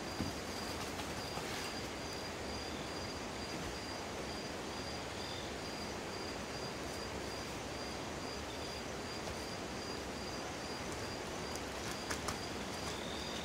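An insect chirping steadily, a short high note about three times a second, over a steady outdoor hiss. A couple of faint sharp clicks come about twelve seconds in.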